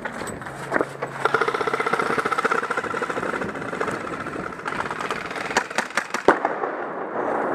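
Airsoft guns firing a long rapid full-auto burst, a fast even rattle, followed by several sharp single cracks.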